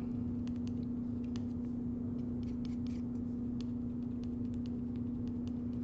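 Metal palette knife scraping and tapping as it works oil paint on palette paper: a scatter of faint, short, irregular scrapes over a steady low hum.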